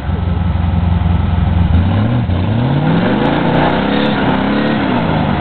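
4x4 truck engine working in a mud hole: it runs at a steady high rev for about two seconds, then the revs climb and drop a few times as the driver works the throttle to push through the mud.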